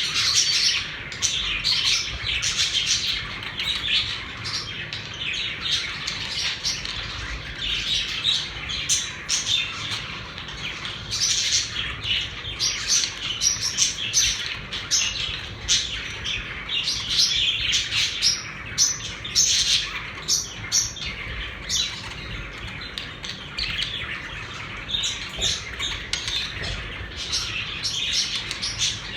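Several pet budgerigars chirping and chattering in a steady stream of overlapping short calls and warbles.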